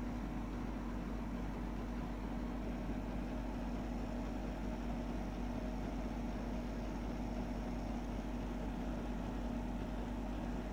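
Steady low hum over a constant background hiss, with no change through the whole stretch.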